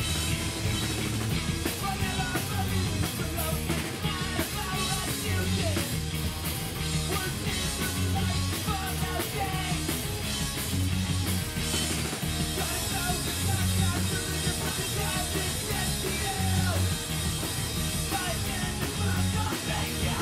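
Live rock band playing a punk-rock song: electric guitars, bass guitar and drum kit with a lead vocal, heard through the club's sound system.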